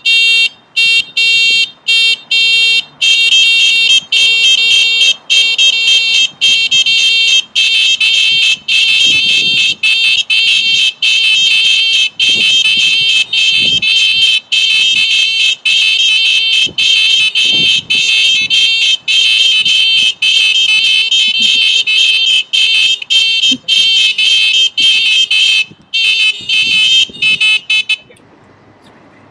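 Loud, high-pitched electronic alarm tone that sounds in quick, irregular bursts with short gaps between them. It cuts off abruptly about 28 seconds in.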